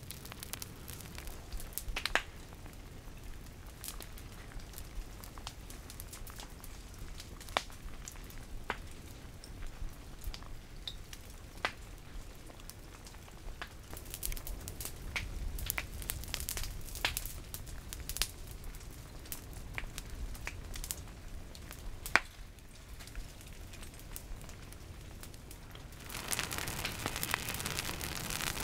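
Dry brush and twigs burning where a Kilauea pahoehoe lava flow advances into them: scattered sharp crackles and pops over a steady low noise, with a louder, even hiss setting in near the end.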